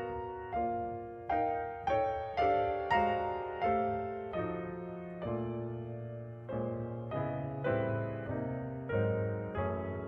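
Piano playing a slow, gentle passage of struck chords, each one ringing and fading before the next, about one to two a second.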